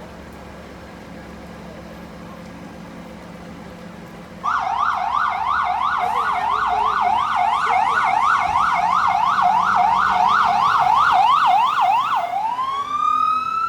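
Emergency vehicle's electronic siren starting suddenly about four and a half seconds in on a fast yelp, about three rising sweeps a second, then switching near the end to a slow rising wail. Before it starts there is a steady low engine and traffic hum.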